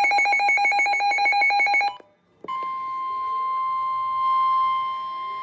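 Emergency alert tones: about two seconds of rapid electronic beeping, a short gap, then a steady single-pitched alarm tone near 1 kHz, the weather radio warning alarm that signals an alert is about to be read.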